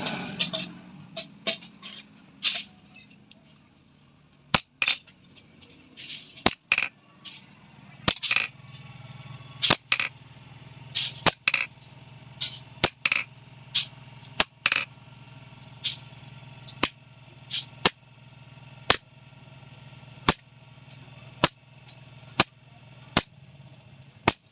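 Hammer striking steel in single blows about once a second, slightly irregular, with the metal ringing briefly after each blow. A low steady hum runs under the blows from about a third of the way in.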